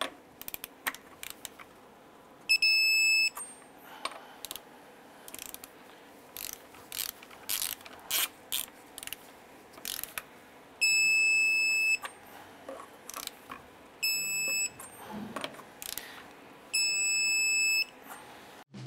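Torque wrench ratcheting in short runs of clicks as truck lug nuts are tightened to 135 foot-pounds. A steady, high electronic beep of about a second sounds four times, each time a nut reaches the set torque.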